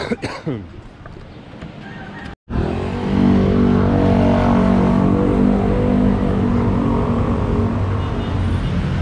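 Street traffic with a motor vehicle engine running loud and steady close by; the sound drops out briefly about two and a half seconds in, and the engine is loud from there on.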